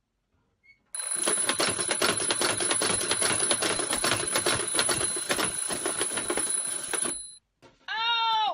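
Alarm clock ringing loud with a fast rattle for about six seconds, then stopping. Near the end a person lets out a short groan.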